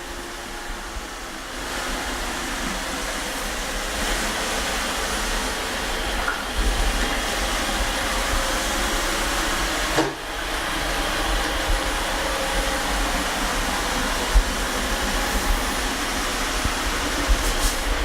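iLife A4s robot vacuum cleaner running while it cleans: a steady whirring hiss. It grows louder about a second and a half in, drops briefly about ten seconds in, and has a few soft knocks.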